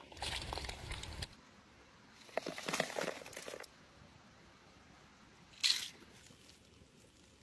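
Crispy battered fried fish and chips crunching: two longer crackling crunches in the first few seconds and a short sharp one a little past halfway.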